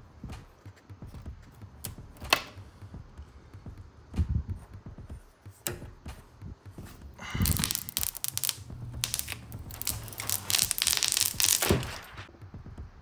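Handling sounds as plugs and a hose are pushed into the back panel of a laser engraver. There is a sharp click about two seconds in, a few smaller knocks, then several seconds of loud rustling and scraping in the second half.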